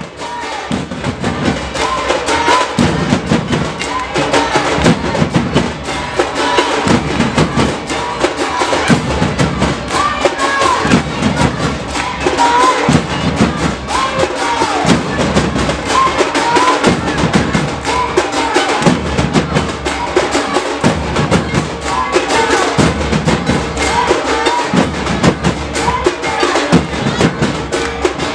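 Live Harinam kirtan music driving a matam dance: loud, fast, steady drumming with voices chanting over it.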